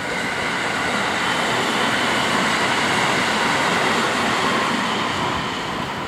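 A JR Kobe Line electric commuter train passing over a level crossing, its running noise building to a peak midway and fading near the end. The crossing alarm bells keep ringing.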